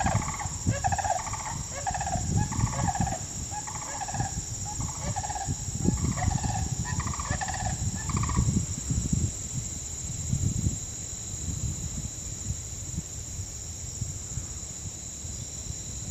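Sandhill crane calling: a run of loud pitched calls repeated about every half second, stopping about eight seconds in, over a low rumble.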